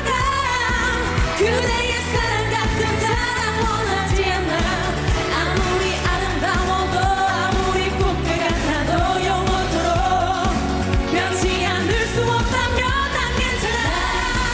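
Female pop vocalist singing live with strong vibrato over an upbeat pop backing track with a steady beat.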